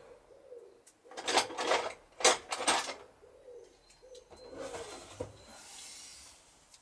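Metal hand tools clattering and clinking as pliers and a small screwdriver are picked out from among other tools, with a run of sharp rattles about a second in and a few lighter clinks later.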